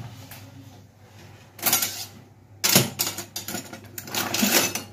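A metal spoon scraping seeds and stringy pulp out of a halved honey pumpkin, in short scraping strokes: one about a second and a half in, then a longer run from about three seconds.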